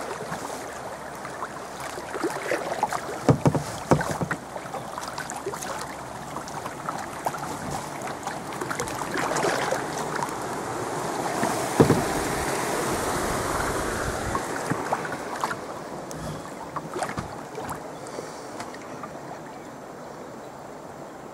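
Fast, choppy river water rushing and splashing around a kayak, with scattered sharp splashes and knocks, the loudest about three to four seconds in and again about twelve seconds in. The rush eases off near the end as the water calms.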